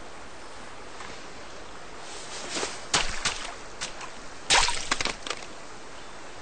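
Splashing in shallow river water: a burst of splashes about three seconds in and a louder one about a second and a half later, over a steady hiss.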